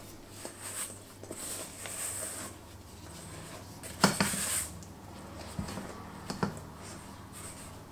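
Spatula working a very wet, sticky pastry dough around a stainless steel mixing bowl. Soft, uneven scraping is broken by a few sharp knocks of the spatula against the bowl, the loudest about four seconds in.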